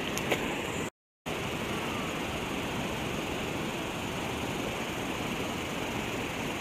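Steady rush of a fast-flowing, flooded river. A short tick comes just after the start, and the sound drops out to silence for a moment about a second in.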